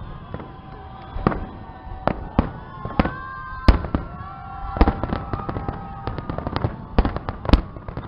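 Fireworks display: a rapid, irregular string of bangs and cracks, the heaviest a little past the middle and near the end, with long steady tones running under them in the middle.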